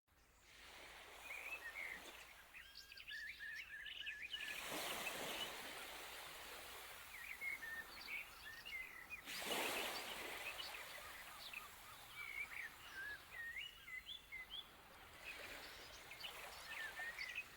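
Birds chirping and singing faintly over a background hiss, with two swells of rushing noise about five and ten seconds in.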